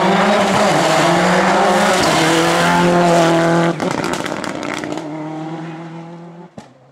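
Rally car engine running hard at high, nearly steady revs. About three and a half seconds in the sound drops sharply, then fades away, with one sharp click near the end.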